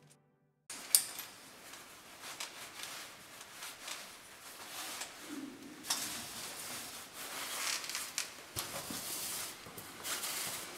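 Climbing hardware on a caver's harness clinking and rattling, with clothing rustling and scraping on rock as the caver moves along the passage; a sharp click about a second in, then scattered clicks and rustles.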